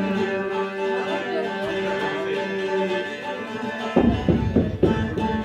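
Instrumental bağlama (saz) music for the semah: held, ringing notes, then fast, rhythmic strumming starting about four seconds in.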